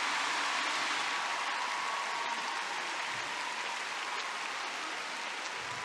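Large arena audience applauding, an even clapping that slowly fades.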